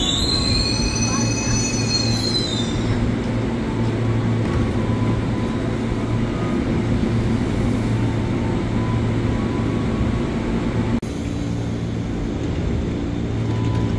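KRL Commuter Line electric train braking to a stop, with high, wavering squeals for the first three seconds or so. It then stands at the platform with a steady low electrical hum from its onboard equipment. A sharp click comes about eleven seconds in.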